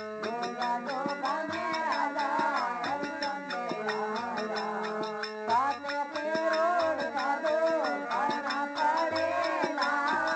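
Marwari devotional bhajan music: a melody that bends and slides in pitch over a low drum beat about once a second, with quick regular high ticking percussion.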